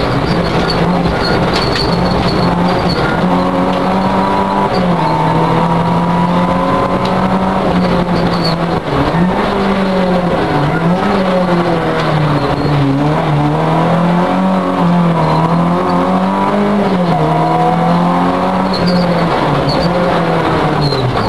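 Citroën Saxo rally car's engine heard from inside the cabin, running hard at high revs while the car is driven along a rally stage. The engine note rises and falls repeatedly with gear changes and lifts for corners, and there is a brief drop about nine seconds in.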